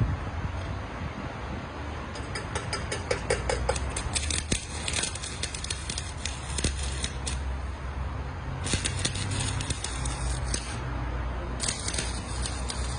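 Arc welding powered by car batteries alone: the welding arc crackles and spits in three spells of a few seconds each, over a steady low rumble.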